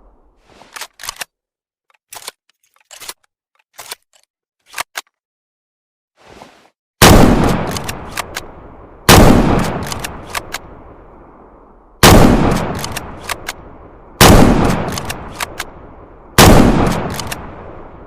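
Remington-made M1903 bolt-action rifle in .30-06: a few seconds of light metallic clicks, then five loud shots about two to three seconds apart. Each shot has a long echoing tail, and smaller clicks of the bolt being worked fall between the shots.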